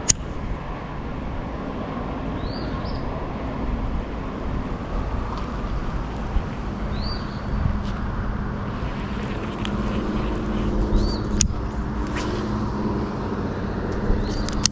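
Outdoor rumble with a vehicle's hum rising about two thirds of the way through, as a car passes on a nearby road. Over it a bird repeats a short two-note chirp about every four seconds, and there is a sharp click near the middle.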